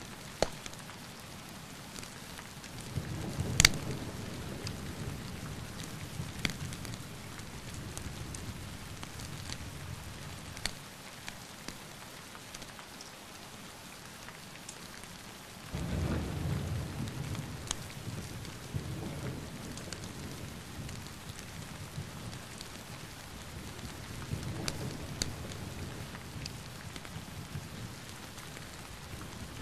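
Steady rain falling, with rolls of thunder rumbling three times, starting about 3, 16 and 24 seconds in. A loud sharp crack comes near 4 seconds in, and a few fainter cracks are scattered through.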